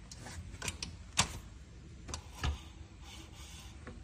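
Metal parts clicking and knocking at an e-bike's rear axle and dropout as they are handled by hand, with light rubbing in between; the two loudest knocks come about a second in and again near two and a half seconds.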